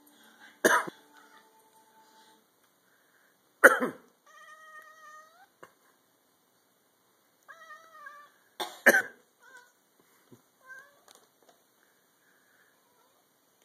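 A person coughs three times, a few seconds apart. In between, a cat meows in protest at the coughing: one long meow that rises at its end, a shorter one just before the third cough, and a few short faint calls after it.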